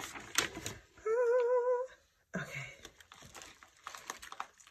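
Kraft paper and shredded crinkle-paper filler rustling as hands move them in a box. About a second in, a woman hums one short, wavering note, the loudest sound here. The sound cuts out briefly, then quieter packaging rustling resumes.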